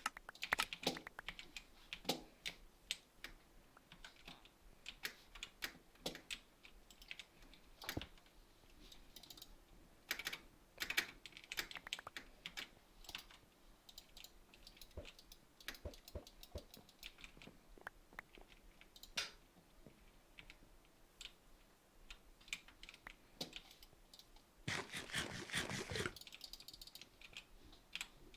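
Irregular clicking: scattered single clicks and quick runs of clicks, with a dense flurry of rapid clicks near the end.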